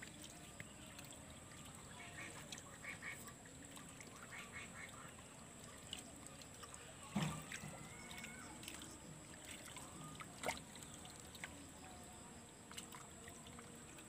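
Faint waterside ambience: scattered short bird calls over a thin steady high tone, with a single thump about seven seconds in.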